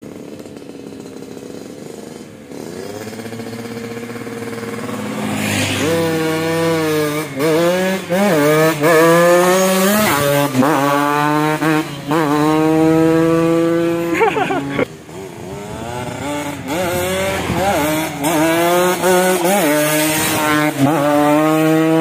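Yamaha RX-King two-stroke single-cylinder motorcycles accelerating hard along the road, the engine pitch climbing and dropping back with each upshift. The sound builds, dips briefly about two-thirds of the way in, then builds again as another bike comes on.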